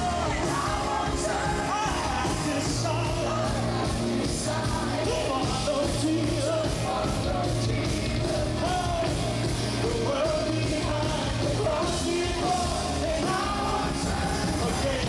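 Live band music with singing: a rock-style worship song with voices over bass, drums and cymbals.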